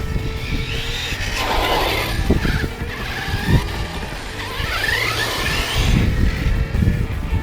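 Arrma Senton 6S BLX RC truck's brushless motor whining, rising in pitch twice as it accelerates hard, over tyre and drivetrain noise.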